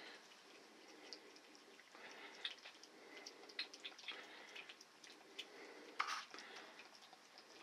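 A cat licking and lapping a creamy squeeze-up treat and gravy from a small bowl: faint, irregular wet clicks of the tongue, with one louder click about six seconds in.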